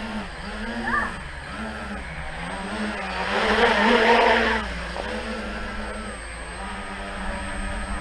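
Tricopter's electric motors and propellers buzzing in flight, the pitch dipping and rising about once a second as the throttle and motors are worked. A louder rushing swell comes between about three and four and a half seconds in.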